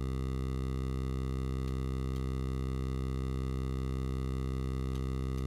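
Sustained synthesizer tone from Arturia Pigments 3's additive engine: a steady, low held note built from many stacked sine partials, unchanging throughout.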